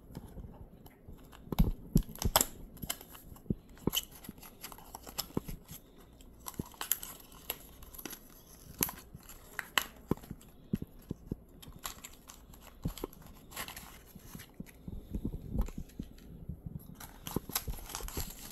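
A small cardboard product box being torn open and handled by hand. The packaging gives scattered tearing, crinkling and irregular clicks and rustles throughout.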